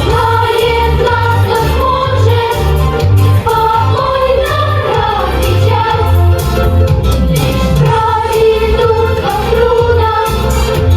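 A song with a group of voices singing over a backing track, with a steady bass beat of about two notes a second.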